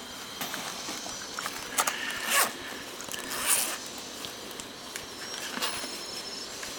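Zipper on a fabric bag being pulled open in a few quick rasps, the loudest about two and a half and three and a half seconds in, with the rustle of hands rummaging inside the bag.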